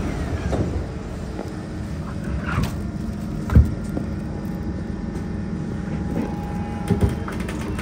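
Kawasaki C151 metro train pulling out of a station, heard from inside the carriage: a steady low rumble of wheels and running gear, with a sharp thump about three and a half seconds in and a lighter knock near the end.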